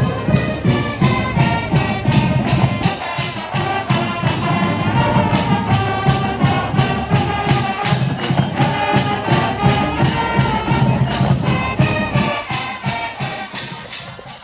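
High school marching band playing: brass over a steady drum beat of about four strokes a second, getting quieter near the end.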